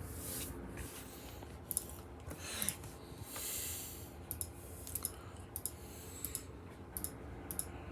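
Faint, scattered sharp clicks and a few short hissy rustles over a steady low hum.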